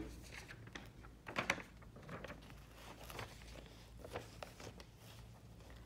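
Faint rustling and sliding of paper with a scatter of light taps and clicks as a book page and a sheet of paper are handled, the loudest rustle about a second and a half in.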